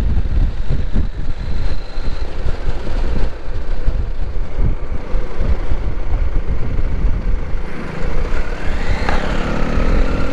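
Riding on a CFMoto 800 motorcycle: steady wind rush buffeting the microphone over the running engine. About nine seconds in, a pitched whine rises to a peak and falls away.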